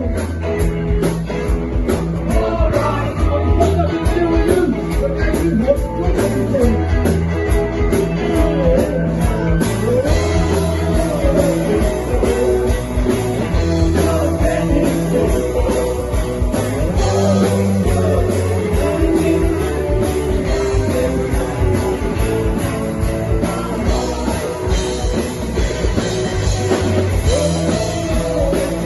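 Rock music led by guitar, with a bass line and a steady beat.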